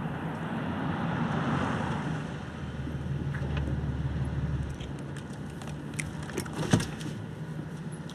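A motor vehicle's engine running steadily, with a deeper drone for a couple of seconds midway and a few sharp knocks near the end.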